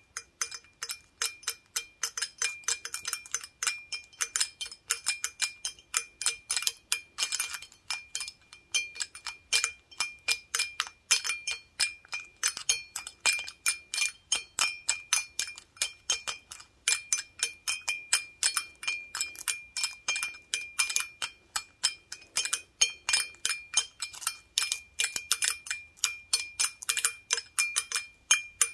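Wooden toothpicks on gloved fingertips tapping an empty glass beer stein in a rapid, uneven run of light clicks, the glass ringing with a clear high note.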